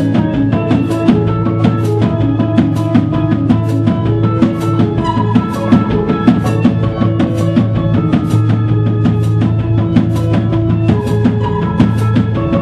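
A live rock band playing: electric guitars and keyboard holding sustained notes over a drum kit keeping a steady beat.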